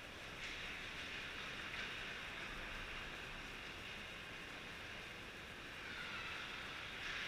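Ice-rink ambience during hockey play: a steady hiss of skates on the ice and the arena hall, which shifts abruptly a few times.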